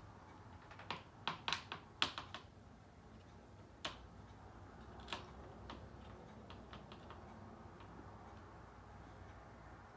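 Light, sharp clicks and taps of small metal parts being handled while fitting a red-dot sight's mounting screws: a quick cluster in the first couple of seconds, then a few sparse single clicks and fainter ticks.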